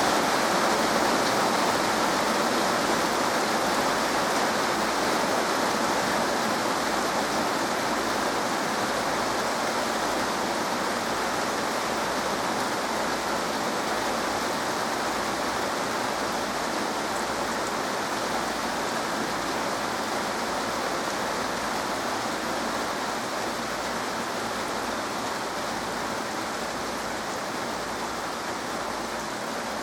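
Heavy thunderstorm rain pouring steadily, slowly easing and getting quieter.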